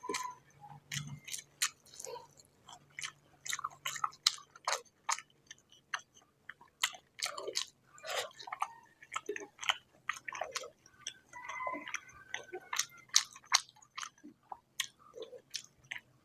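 A person chewing pork fat and rice, with many irregular sharp mouth clicks in quick succession.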